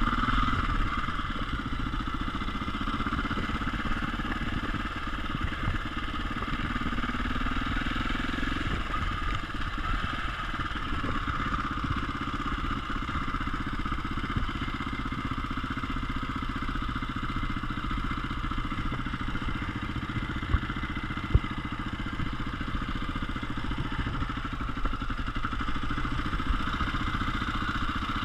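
KTM EXC enduro motorcycle's single-cylinder engine running steadily at low speed, the revs rising briefly a few seconds in. Two sharp knocks come about three quarters of the way through.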